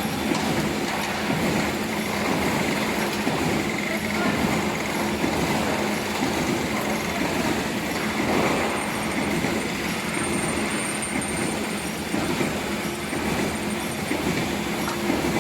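Automatic wire mesh welding machine running: a steady mechanical clatter of rapid clicks over a low, constant hum.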